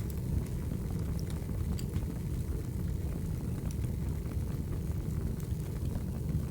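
Firewood burning: a steady low rumble of flames with a few scattered crackles and pops.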